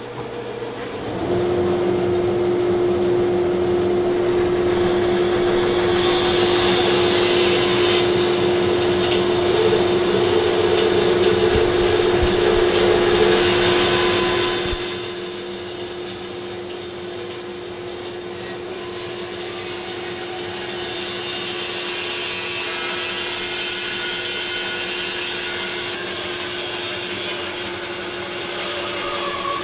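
Dust collector and a bandsaw running; the saw comes up to speed about a second in with a steady hum. Its blade cuts through a thick wooden bowl blank, louder up to about halfway, then the sound eases to quieter steady running.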